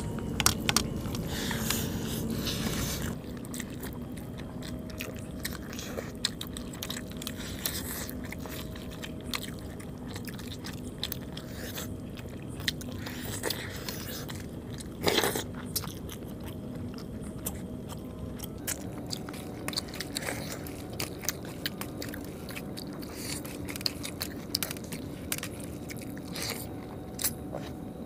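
Close-up eating sounds of two people eating chicken curry and rice by hand: chewing and biting, with fingers scraping and mixing rice on metal plates making many small clicks and scrapes. There is one louder noise about fifteen seconds in, and a faint steady hum underneath.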